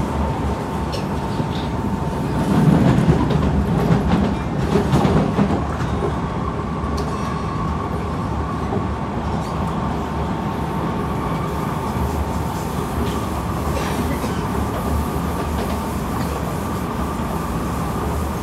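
Kawasaki C151 metro train running between stations, heard from inside the car: a steady rumble of wheels on the track, with a thin, steady high whine. The rumble swells louder for a few seconds near the start.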